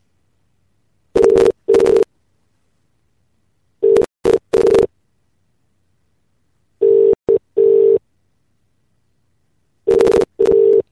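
British telephone ringing tone heard down the line on an outgoing call: the double "ring-ring" pattern four times, about three seconds apart, as the number rings unanswered.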